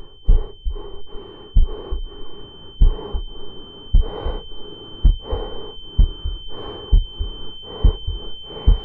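Film sound design: a slow, heavy heartbeat thumping about once a second, over a steady high-pitched ringing tone.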